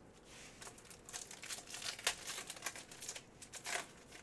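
Red foil wrapper of a Panini Playbook football trading-card pack being torn open and crinkled as the cards are pulled out. A run of sharp crackling rustles starts about half a second in, with the loudest crackles near two seconds and near the end.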